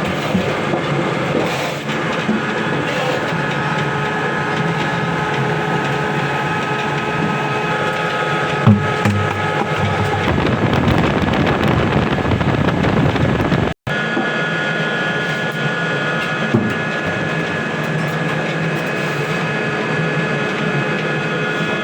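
Yulong XGJ560 biomass pellet mill running under load as it presses mixed wood sawdust into pellets: a loud, steady mechanical din with several held whining tones. There are a couple of short knocks, and the sound drops out for an instant about two-thirds of the way through.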